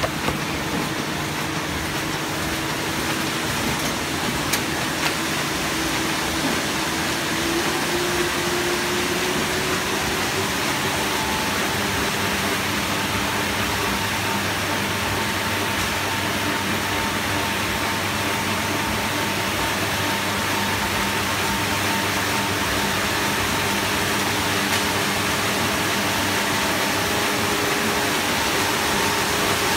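Muller Martini Bravo Plus Amrys saddle stitcher running: a steady mechanical machine noise with a low hum, whose pitch rises slightly about eight seconds in, and a higher steady tone that joins about ten seconds in.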